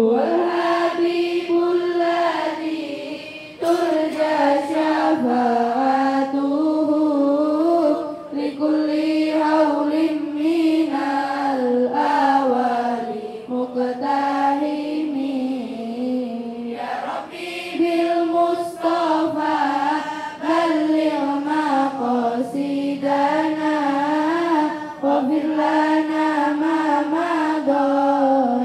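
Large group of girls chanting in unison, a melodic recitation with wavering, ornamented pitch, sung in phrases of a few seconds with short breaks for breath between them.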